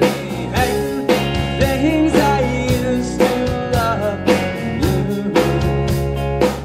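Live band playing a rock song: electric guitar, keyboard and drum kit, with drum hits keeping a steady beat of about two a second.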